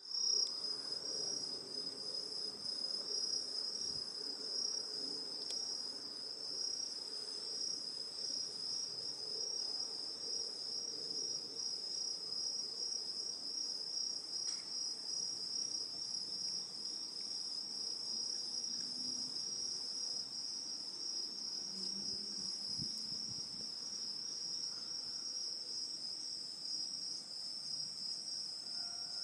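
Night insects chirping: a high, steady, evenly pulsing trill that continues without a break.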